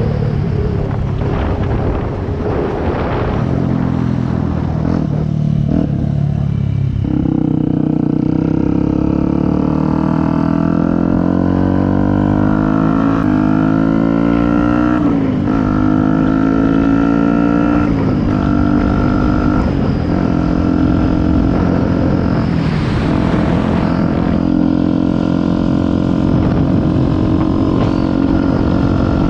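Yamaha WR 125X's single-cylinder four-stroke engine running through an aftermarket BlackWidow exhaust. Its pitch climbs steadily for several seconds, drops sharply twice as with gear changes, then holds fairly steady.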